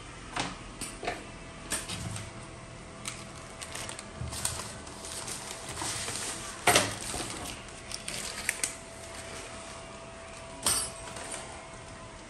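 Objects being handled and set down: irregular clicks, taps and knocks, the loudest about seven seconds in and another near the end, over a faint steady hum.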